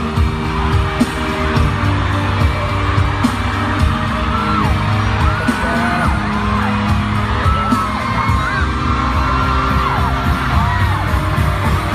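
Loud pop music with a steady beat, with voices singing and calling out over it, their pitch gliding up and down.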